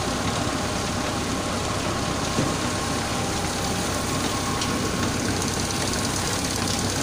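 Orange washing and brushing machine running steadily: rollers turning and water spraying over the fruit, a dense, even machine noise with a faint hum, and one brief knock about two and a half seconds in.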